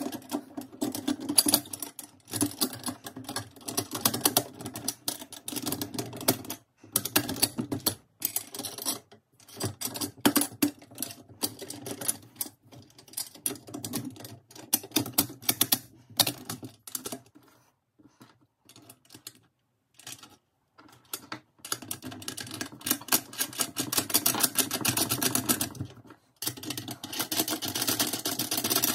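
Small metal parts of a chainsaw mill clicking and rattling in rapid runs as the aluminium upright bracket and its bolts are handled and nuts are fitted by hand, with a few seconds of quiet just past the middle.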